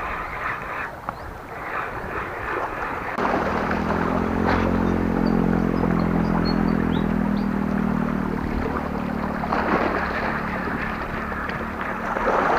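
Small waves washing and splashing over shoreline rocks. About three seconds in, a steady low motor-like hum sets in, holds for about eight seconds and fades out near the end.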